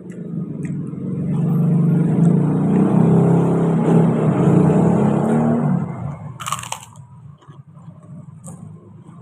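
A motor vehicle passing close by: its engine swells over a couple of seconds, runs loudly and fades away about six seconds in. Shortly after, one brief, sharp crunch of a bite into something crisp.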